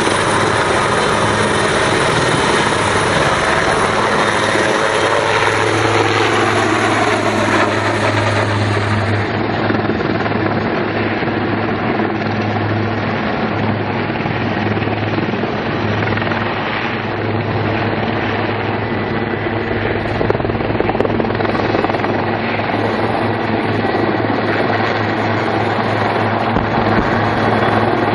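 Denel Rooivalk attack helicopter's rotors and turbine engines running, a steady loud din with a low hum beneath. A whine drops in pitch about five seconds in.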